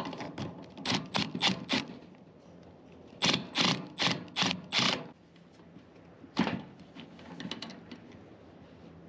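Sharp metallic clicks and knocks from hand tools and a blower motor's mounting bracket being worked on, likely as the bracket is loosened and turned. A run of clicks comes first, then a faster, louder run in the middle and a single louder knock later.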